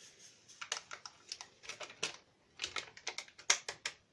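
Sachet of instant dry yeast being shaken and tapped out over a bowl of flour: an irregular run of short, dry crinkles and taps.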